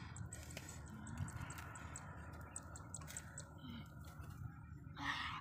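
Faint small crackles and ticks from a smouldering straw fire with fish roasting over it, and a short animal call near the end.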